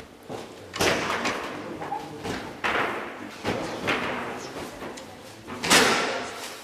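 About half a dozen sharp knocks and clacks of foosball play, rods and hard ball striking the table, the loudest near the end.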